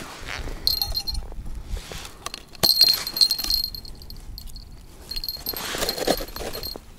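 Light metallic clinking and jingling, with short high ringing tones three times, as a winter pike tip-up (zherlitsa) is handled and set over an ice hole.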